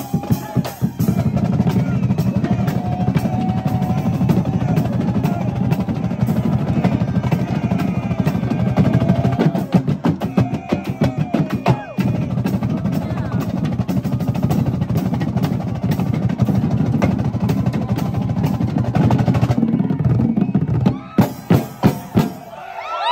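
A drumline of large marching drums played in a fast, continuous roll, heavy in the low end. The roll breaks briefly about halfway through, then thins near the end to a handful of single loud hits. Voices shout over it now and then.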